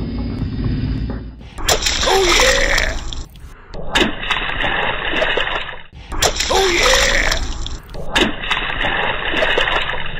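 Wet splattering and squelching as a toy truck's wheels crush soft, slime-filled objects. The same burst of sound comes twice, about four and a half seconds apart.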